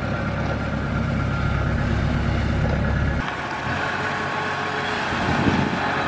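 Kubota DC-70 Plus combine harvester's diesel engine and machinery running steadily, a low hum with a thin steady whine above it. The low hum shifts abruptly about three seconds in.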